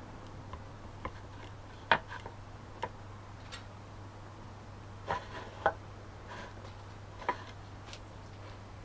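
Light, irregular clicks and taps from handwork on small plastic parts during plastic welding, about nine spread over several seconds, over a steady low hum.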